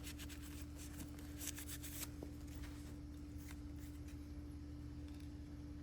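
Faint handling sounds of a pistol being turned in the hands: light clicks and rubbing over the first two seconds, then quiet, over a steady low hum.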